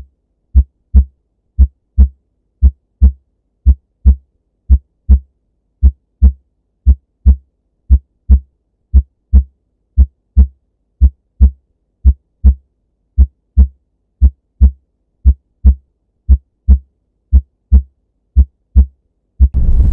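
Heartbeat: steady paired lub-dub thumps, about one beat a second, with silence between beats. Just before the end, loud music cuts in.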